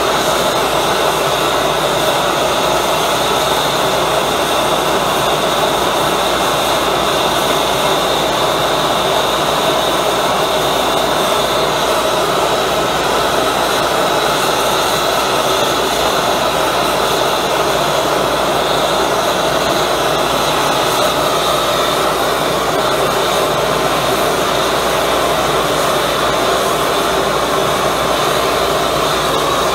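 High-velocity propane burner with compressed-air assist, running steadily with a loud, even rushing noise.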